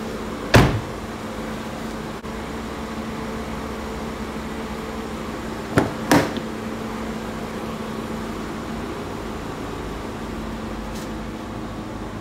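A 2018 Jaguar XF's front door shut with one solid thud about half a second in; about five seconds later two quick clicks as the rear door handle is pulled and the latch releases. A steady mechanical hum runs underneath.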